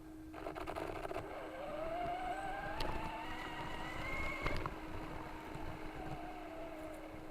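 Electric motor of a 4x4 RC car whining as it speeds up and then slows down, with a cluster of clicks about half a second in and a steady low hum underneath.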